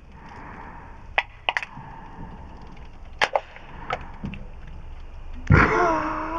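Sharp metallic cracks of aluminium beer cans being punched and popped open for shotgunning, about six of them over a few seconds, some in quick pairs. Near the end, a loud held sound with a wavering pitch comes in.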